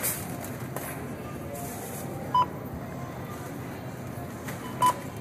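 Self-checkout barcode scanner beeping as items are scanned: two short, high beeps about two and a half seconds apart.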